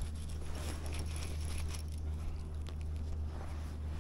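Light ticking and rustle from a baitcasting reel winding in a small hooked trout, over a low steady hum.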